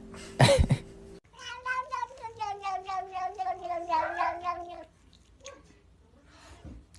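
A cat gives one long, wavering yowl lasting about three and a half seconds and falling slightly in pitch, after a short loud sound about half a second in.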